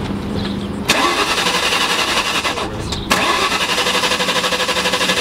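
2003 Mustang SVT Cobra's supercharged 4.6-litre V8 cranking over without firing, in two attempts with a short break about three seconds in. It is a no-start that the owners later traced to bad gasoline.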